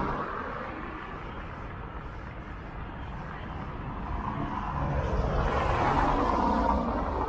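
City road traffic: a vehicle drives past, its sound building to a peak about six seconds in and then easing off, over a steady low rumble.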